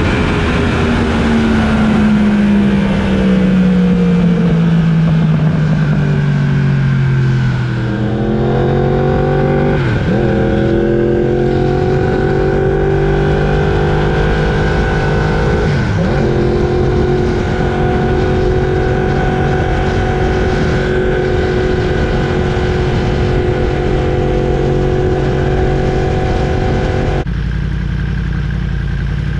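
Yamaha R1's crossplane inline-four engine heard from the moving bike. The engine note falls steadily as the bike slows, then picks up and holds a steady cruise, with two brief dips in pitch along the way, under heavy wind rush on the microphone.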